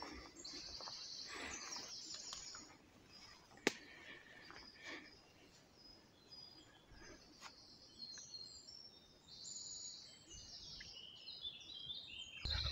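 Woodland birdsong: several birds chirping and trilling in short repeated phrases, with soft footsteps on the forest floor and one sharp click about three and a half seconds in.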